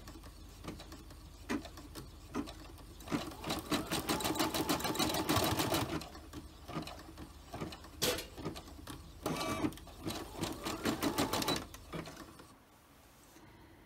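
Computerized embroidery machine stitching a small filled dot. Stretches of rapid, even needle strokes alternate with single clicks, and the machine stops near the end.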